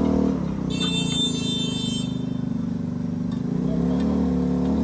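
A motor vehicle engine running close by, its pitch shifting slightly, with a brief high-pitched tone from about one to two seconds in.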